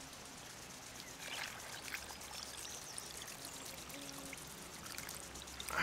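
Water poured in a thin stream from a plastic bottle into a small aluminium pot holding pasta: a faint, steady trickle.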